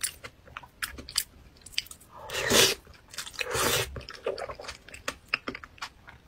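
Close-miked eating of soft pig brain: small wet mouth clicks and chewing throughout, with two long rushes of breath about two and three and a half seconds in, blowing through pursed lips to cool the hot food.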